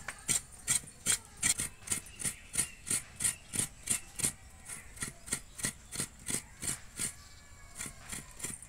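Coconut flesh being grated by hand: a coconut half scraped over and over against a toothed scraper blade on a wooden base, a rasping stroke about three times a second, with a short pause near the end.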